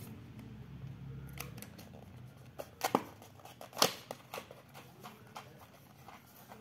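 Small white cardboard box being opened by hand: quiet paper-and-card handling with a few sharp clicks, the two loudest about three and four seconds in.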